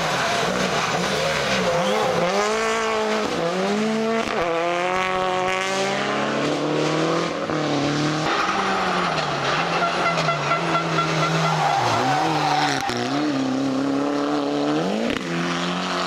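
Rally car engines revving hard over several passes, the pitch climbing through each gear and dropping back on lifts and shifts.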